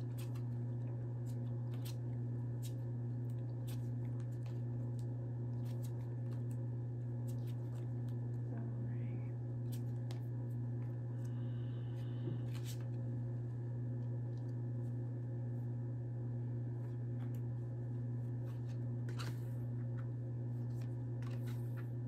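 Playing cards being drawn, fanned and set down, faint scattered clicks and rustles over a steady low hum.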